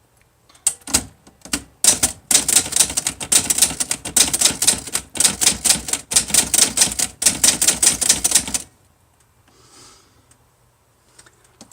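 Olivetti-Underwood Studio 44 manual typewriter being typed on: a few single keystrokes, then a fast, continuous run of key strikes that stops about nine seconds in. The machine is in perfect condition, and its typing is very gentle.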